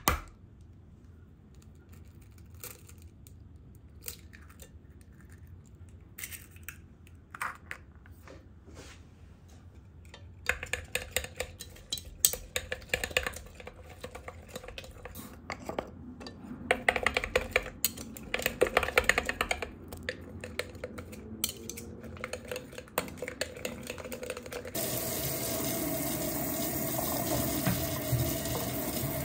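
A utensil stirring beaten eggs and diced vegetables in a glass measuring jug: a few light taps at first, then from about ten seconds in, fast, dense clicking against the glass in bursts. Near the end a kitchen faucet sprayer starts running steadily onto strawberries in a stainless-steel sink strainer.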